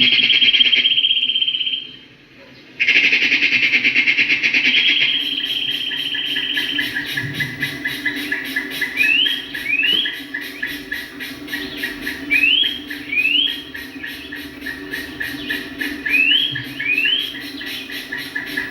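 Birds calling: loud rapid trills at first, then pairs of short rising whistled notes repeated every few seconds over a steady high chirring.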